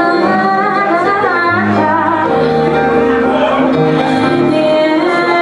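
Slow R&B backing track playing, with held chords and a moving low line, and a woman's voice singing wordless runs over it as the song's intro.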